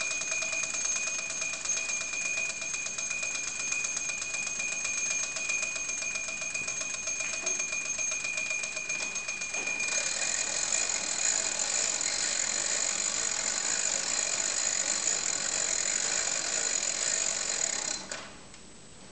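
The clockwork spring motor of a wind-up rotisserie ringing its bell: a rapid, continuous metallic ringing. About halfway through, the ringing changes pitch while the crank is turned to wind the spring. Near the end it cuts off suddenly.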